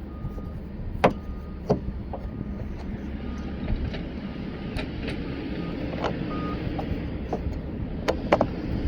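Scattered clicks and taps of a Phillips screwdriver working license plate lamp screws in clockwise, over a steady low rumble.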